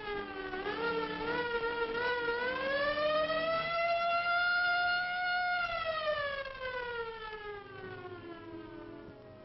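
A 1930s ambulance's siren wailing: the pitch wavers at first, rises over the first few seconds, holds high for a couple of seconds, then falls slowly away as it winds down.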